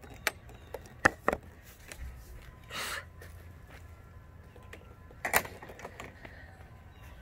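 A few sharp clicks and knocks: two loud ones in quick succession about a second in and another a little past five seconds, with a short swish near three seconds.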